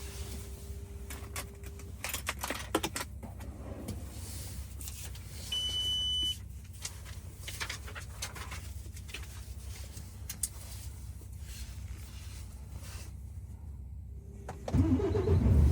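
Clicks and handling noises inside a truck cab, with a single high electronic beep about five seconds in. Near the end the truck's diesel engine cranks and starts, then settles into a loud, low, steady running.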